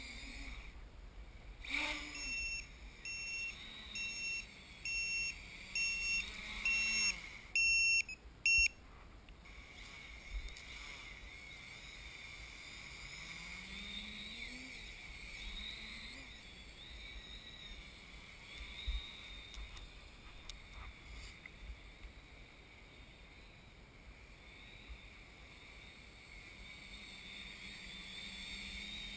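Quadcopter's brushless motors and propellers whirring in a steady whine, with the pitch rising once partway through. During the first third there is a series of about nine short electronic beeps, roughly one every 0.7 s. The last beeps are the loudest and one is longer.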